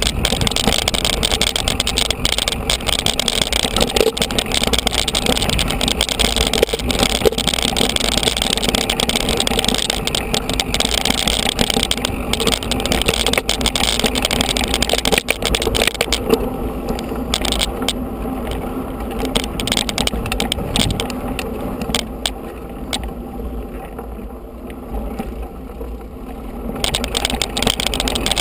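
Mountain bike ridden over a bumpy grass and dirt track, heard from a camera riding along: steady wind rumble on the microphone with constant rattling and knocks from the bumps. The hiss thins out for about ten seconds past the middle, then comes back.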